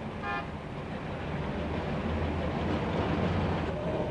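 Steady low engine rumble of a fuel-powered Karachi tram with street traffic, slowly growing louder. A short high tone sounds right at the start.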